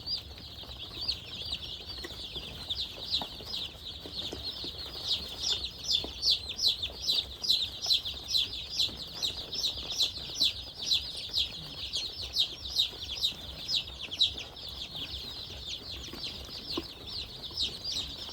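A flock of about 300 day-old Sasso chicks peeping together: a dense, continuous chorus of short, high chirps, each sliding downward in pitch.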